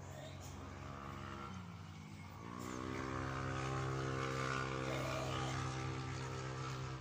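An engine running steadily. Its pitch dips and then climbs about two seconds in, and it holds a steady, louder note after that.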